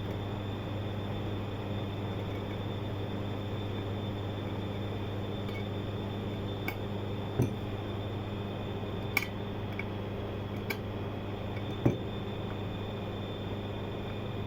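A few sharp clicks and taps as the housing of a limit switch is handled and its cover taken off, over a steady low hum.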